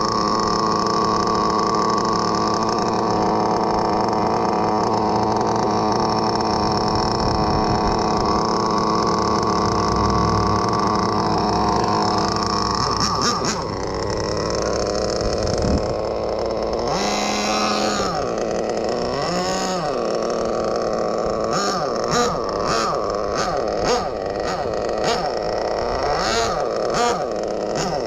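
Small .12 nitro engine of an RC car idling steadily. Its pitch shifts about halfway through, and several sharp clicks or knocks come near the end.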